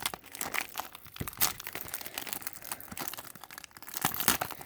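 Packaging being opened by hand: irregular crinkling and tearing, with sharper crackles about a second and a half in and again near the end.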